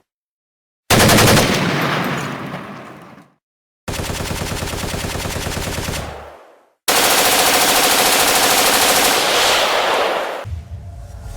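Machine-gun sound effect: three bursts of rapid automatic fire, each broken off by sudden dead silence, the last one longest. It is a transition effect cut into an edited dance-music mix.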